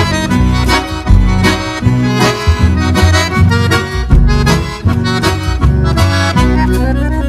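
Upbeat instrumental music led by accordion over a steady bass and drum beat.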